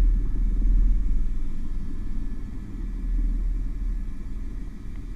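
Airbus H125 helicopter's rotor and turbine noise heard inside the cockpit while hovering: a steady low rumble that eases off somewhat after about a second and a half.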